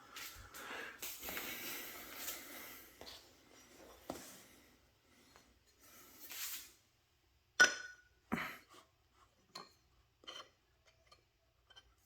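Metal woodworking positioning squares being handled and fitted against each other. Soft rubbing and sliding for the first few seconds, then several light, sharp metallic clicks as they are set down and touch.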